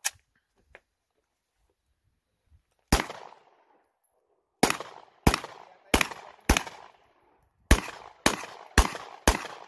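Gunfire: after a sharp click at the start, a single shot rings out about three seconds in. Two strings of four quick shots follow, each about half a second apart, and every shot trails off in a short echo.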